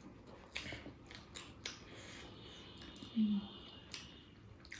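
A series of light, sharp clicks and snips as food is handled with utensils before eating, with a brief low hum about three seconds in.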